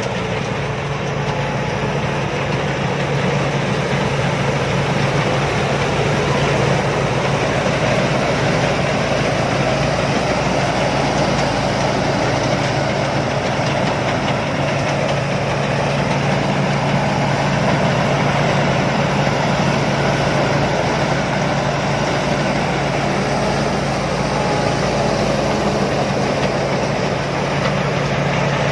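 Combine harvester's engine running steadily, a constant low hum over machinery noise with no change in speed.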